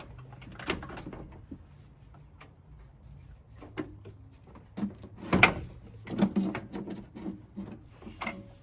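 A radiator and condenser being handled and fitted into a pickup's front end: scattered knocks, clunks and rattles, the loudest a sharp knock about five and a half seconds in, followed by a run of smaller clunks.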